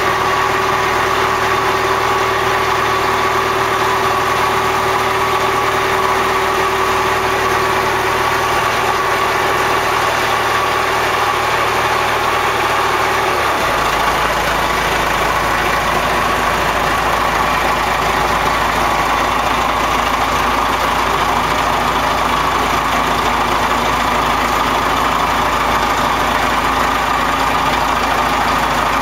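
Motorboat engine running steadily, heard from aboard the moving boat; its low hum changes pitch abruptly about halfway through.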